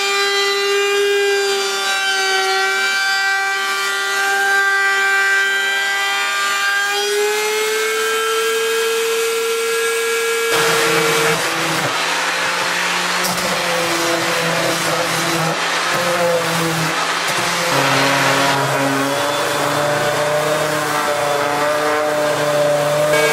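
An electric router in a router table running with a steady whine, its pitch stepping up slightly about seven seconds in, as a cedar piece is fed past the bit. About ten seconds in it gives way to a random orbital sander buzzing with a rough rasp as it sands cedar.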